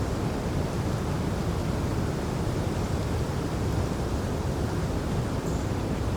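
Wind blowing steadily: an even, low rushing with no distinct events.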